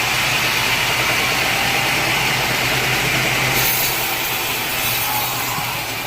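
Sawmill saw cutting through a large teak log: a steady, loud sawing noise over a low machine hum, turning brighter and hissier about three and a half seconds in.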